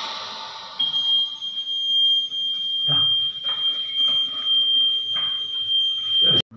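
Anesthesia machine alarm sounding one continuous high-pitched tone, starting about a second in and cutting off suddenly near the end. A hiss fades out at the start, and a few faint knocks sound under the tone.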